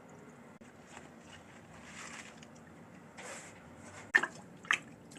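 Kitchenware being handled: a couple of faint rustles, then two sharp knocks near the end.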